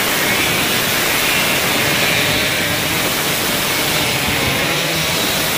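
A pack of 120cc two-stroke underbone racing motorcycles revving hard through a corner, their engines blurring into one dense, loud, steady din with faint wavering pitches.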